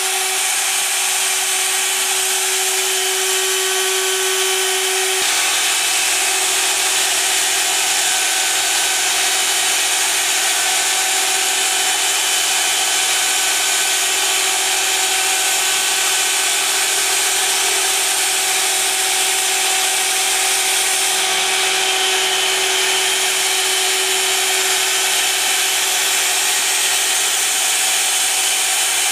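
High-speed spindle of a CNC engraving machine running steadily, with a 60° engraving cutter cutting grooves in a clear plastic sheet: a steady whine made of several fixed tones over a wide, even hiss.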